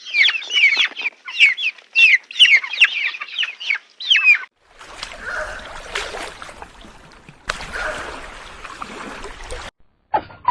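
Baby chicks peeping: a rapid run of short, high, falling cheeps for about four seconds. After that come two stretches of breathy, hissing noise of a few seconds each.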